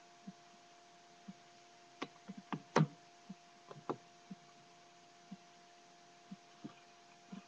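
Soft low ticks about once a second over a steady electrical hum, with a cluster of sharper knocks and clicks in the middle, the loudest about three seconds in.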